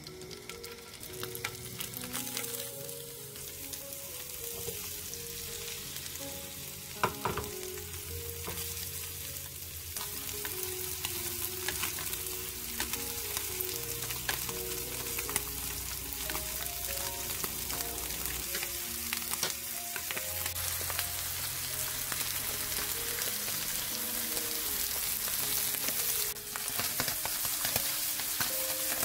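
Sand lances sizzling as they fry in oil in a hot nonstick pan over medium-low heat, the sizzle growing louder as more fish go in. Now and then a sharp click or knock, one loud one a few seconds in.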